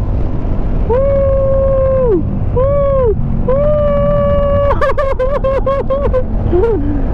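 A rider's long, high-pitched whooping calls: a held call, a short one, then another held call that breaks into a quick string of short whoops, and a lower falling call near the end. Under them is the low steady rumble of the motorcycle's engine and the wind.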